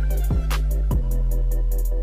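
Background music with a steady electronic beat: deep bass, kick drum and hi-hat.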